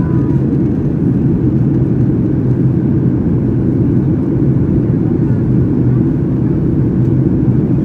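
Steady, low drone inside the cabin of a Boeing 737-800 during descent: the CFM56 engines and the airflow past the fuselage.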